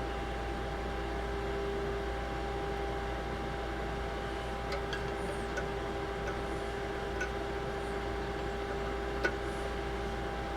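Steady test tone of the signal generator's AM modulation leaking through a vintage FM radio as its ratio detector is tuned to reject AM, over low mains hum and hiss. A few faint clicks come in the second half.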